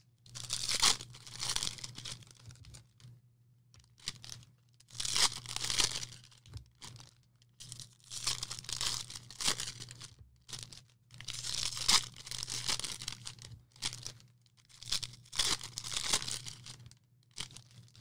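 Packaging of sports-card boxes and packs being torn open and crinkled by hand, in repeated bursts every second or two, over a faint steady low hum.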